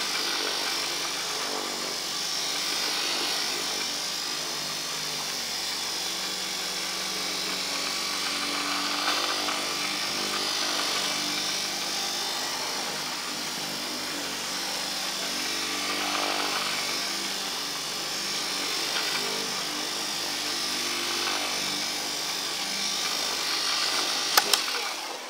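Handheld electric orbital polisher with a fleece bonnet running steadily, its pad rubbing wax into a fiberglass boat deck. A couple of knocks come near the end, and the motor stops just before the end.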